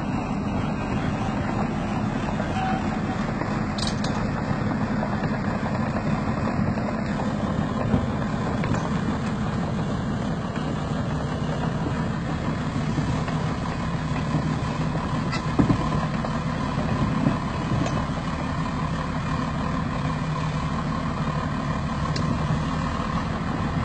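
Heavy six-wheeled military truck's engine running steadily under load as it tows a tracked AMX-13 tank over grass, with a few faint clicks.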